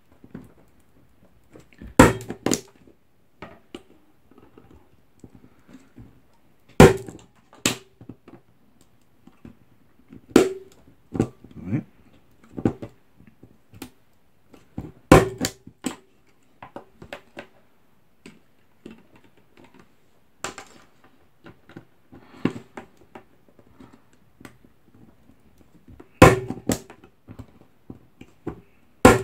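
Punch-down tool snapping as it seats and trims Cat6 wires into the insulation-displacement terminals of an RJ45 keystone jack. About five loud sharp snaps a few seconds apart, with fainter clicks between them.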